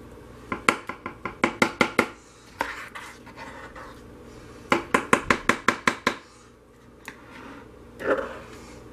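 A spoon knocking against the crock pot and mold in quick runs of sharp taps, with scraping between them, as thick hot-process soap is scooped into a loaf mold. One run comes about a second in, and a faster run of about nine taps comes around five seconds in.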